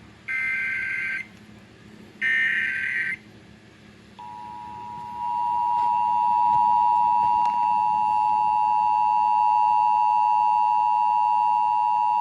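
Emergency Alert System SAME header data bursts, two one-second bursts of warbling digital tone about a second apart, the last two repeats of the header that encodes a Child Abduction Emergency (AMBER Alert). About four seconds in, the steady EAS two-tone attention signal (853 and 960 Hz) starts, stepping up louder a second later, heard as relayed over FM radio.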